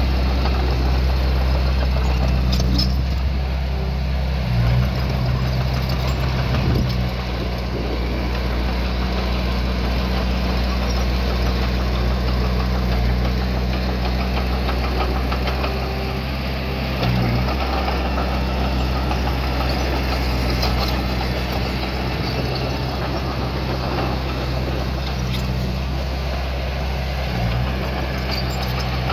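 Diesel engine of a small bulldozer working soil, running steadily with brief surges in power a few times.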